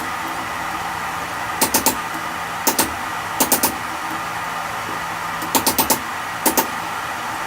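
Hammer blows on steel, falling in five quick groups of two to four sharp, ringing strikes, over a steady hiss.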